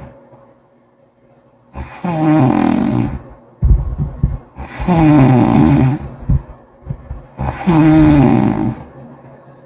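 A person snoring loudly with a wet, bubbling sound: three long snores about three seconds apart, with quiet pauses between them.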